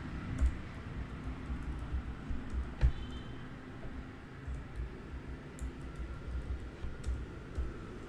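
Typing on a computer keyboard: irregular key clicks, with one louder click about three seconds in.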